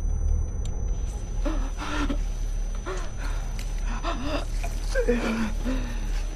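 A woman gagging and retching in a string of short vocal bursts as she pulls a long strand of hair out of her throat, over a low steady rumble.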